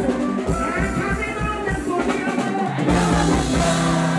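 Live gospel music: a band with a drum kit playing, with a woman singing lead into a microphone over it. About three seconds in, the music moves to steadier held notes.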